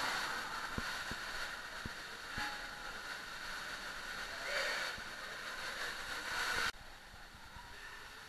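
Steady hiss of running water at a water-park slide, with a few soft knocks in the first couple of seconds; it drops abruptly to a quieter hiss about two-thirds of the way through.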